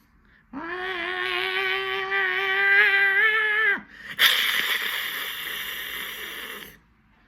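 A man's voice imitating a cat, holding one long sung meow for about three seconds, then a harsh, raspy screech for about two and a half seconds.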